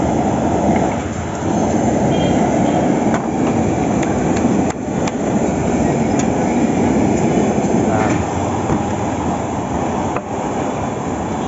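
Steady roar of a large gas burner flame under a chapati griddle, with a few light clicks from the cooking.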